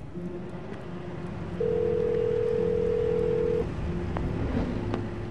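A telephone tone: a single loud steady tone lasting about two seconds, over a low steady hum, with a couple of faint clicks near the end.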